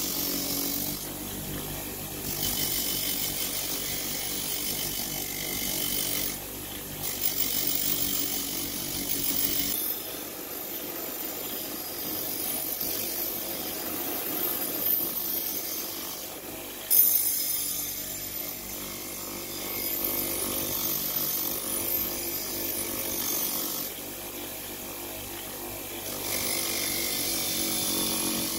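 Bench grinder running with a steady motor hum while the steel blade of old scissors is pressed against its spinning wheel, giving a grinding hiss in spells of a few seconds that drops away whenever the blade is lifted off. A sharp knock about 17 seconds in.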